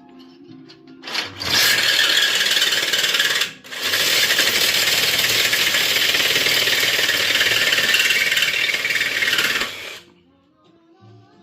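Power tool grinding metal in two harsh runs, a short one of about two seconds and then a longer one of about six, each starting and stopping abruptly. Faint background music underneath.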